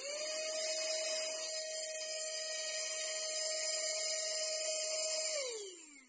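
Cordless handheld mini vacuum cleaner (ccdi6rc0sl 50000Pa) switched on. Its motor spins up at once to a steady high whine over a rush of air, runs for about five seconds, then is switched off and winds down with a falling pitch near the end.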